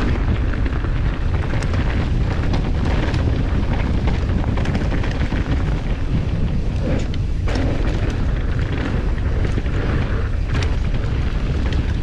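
Mountain bike riding fast down a dirt trail: wind buffeting the on-bike camera's microphone as a heavy, steady low rumble, with tyre noise and frequent short rattles and knocks from the bike over bumps.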